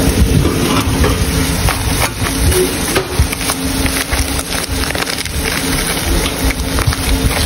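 Thin plastic shopping bags rustling and crinkling as groceries are rummaged through, with heavy rumble from handling close to the microphone. A faint steady hum sits underneath.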